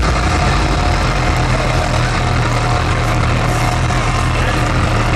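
Loud electronic dance music from a festival sound system, heard from within the crowd: a steady wall of sound with a heavy, sustained bass line.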